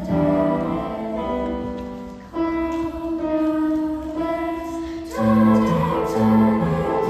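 Girls' school choir singing long held notes. The sound dips briefly about two seconds in before a new phrase begins, and a low repeating accompaniment figure comes in about five seconds in.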